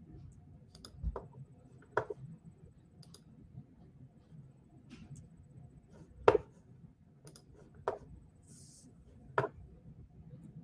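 Scattered clicks and knocks, about five in all, the loudest a little past halfway, over a faint steady room hum: handling noise near the microphone.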